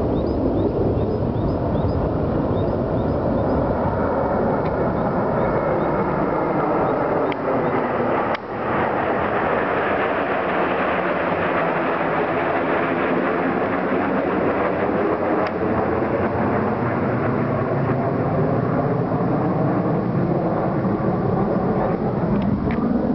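Jet engine noise from a formation of five military jets flying over, loud and steady, with a sweeping whoosh that shifts in pitch as they pass overhead.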